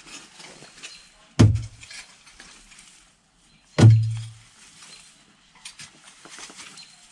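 A long-handled hand tool scraping and dragging through loose soil and sod clumps, with two heavy thuds, one about a second and a half in and one near four seconds in.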